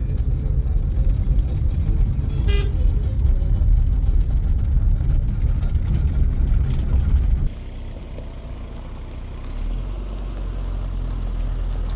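Small car's engine and tyre noise heard from inside the cabin while driving, with one short horn toot about two and a half seconds in. A little past halfway the sound drops to the quieter note of the car, heard from outside, rolling up and idling.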